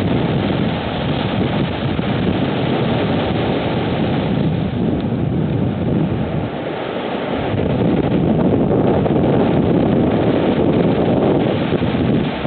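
Strong typhoon wind blowing in gusts and buffeting the microphone. It eases for a moment about six seconds in, then blows harder again.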